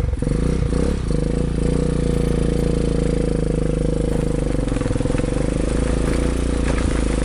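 ATV (quad bike) engine running steadily as it is ridden along a rough jungle dirt trail.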